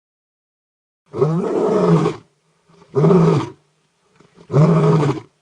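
A big cat roaring three times, each roar under a second long with a pitch that rises and then falls.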